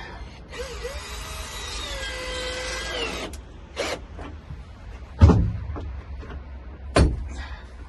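A handheld power tool's motor whines for about three seconds, its pitch wavering, then three sharp knocks follow.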